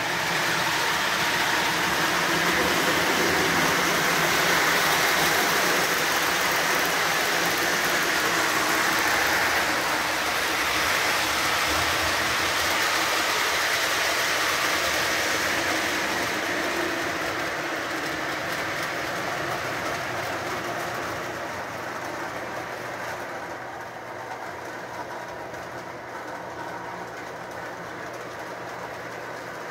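Lionel Santa Fe ALCO FA O-gauge model diesel locomotive and its cars running on three-rail track: a steady motor hum with the rolling of wheels over the rails. It grows quieter after about twenty seconds.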